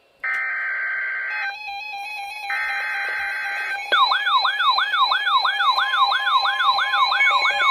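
Weather radio alert: two short bursts of buzzy digital header tones with a pause between them. About four seconds in, an electronic alert siren starts, a warbling sweep that repeats about three times a second, signalling that a new severe weather warning is about to be read.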